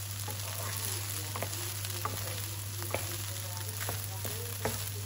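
Cooked jasmine rice and onions sizzling in oil in a nonstick wok while a wooden spatula stirs them, with a steady hiss and scattered light knocks and scrapes of the spatula against the pan.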